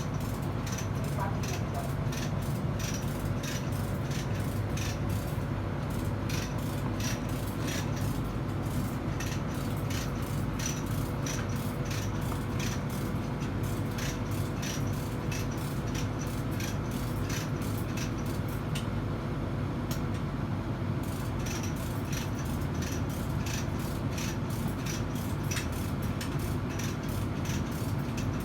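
Steady low machinery hum with a regular sharp clicking about twice a second, which stops briefly twice.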